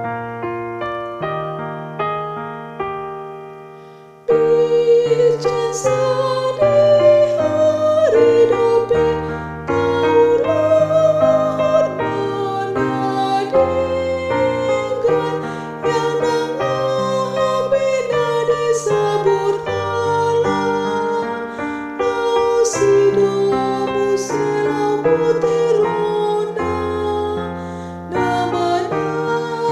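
Keyboard with a piano sound playing a four-part choral song. It opens with quiet piano chords whose notes die away, then about four seconds in a louder held melody line enters over the chords. That line is the tenor part, brought forward for practice.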